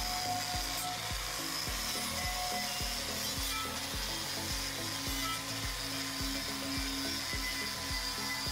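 Angle grinder with a wire cup brush running steadily, scrubbing the inside of a cast iron brake drum to clean it before welding. Background music with a steady beat of low thumps plays under it.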